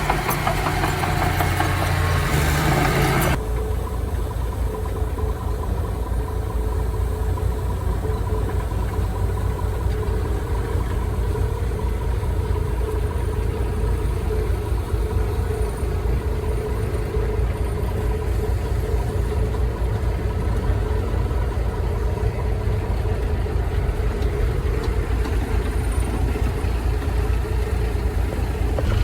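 Heavy machinery engine running steadily with a low drone. A louder, harsher layer over it cuts off abruptly about three seconds in.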